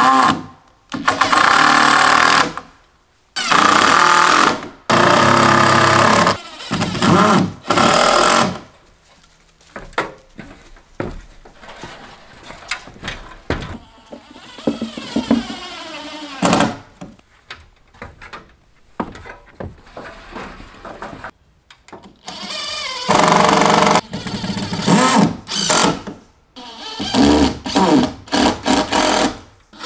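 A small motorized tool running in repeated bursts of about one to two seconds, starting and stopping, with a quieter stretch in the middle.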